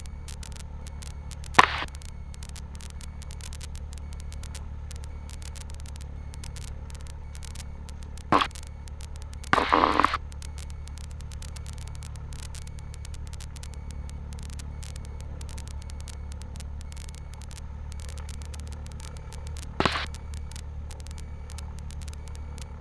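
Cessna Skyhawk's four-cylinder engine idling as a steady low hum, heard through the intercom with faint ticking static. Sharp clicks break in a little under two seconds in, about eight seconds in and near twenty seconds, with a half-second crackle around ten seconds.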